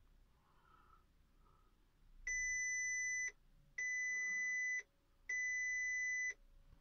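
Three long, identical electronic beeps from an SBB Pro2 car key programmer as it starts up, each about a second long with short gaps between them.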